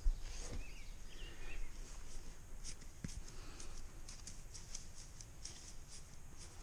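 Balancing beads being pumped with a turkey baster through a hose into a motorcycle tyre's valve stem: light, irregular clicking. A couple of short chirps come about a second in.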